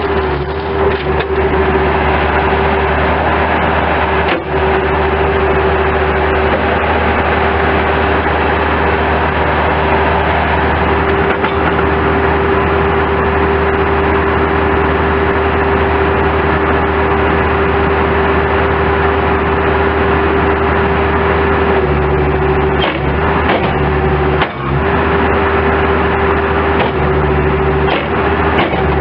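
Bobcat S185 skid steer loader's diesel engine running steadily, with a steady whine over the engine note and a few brief knocks.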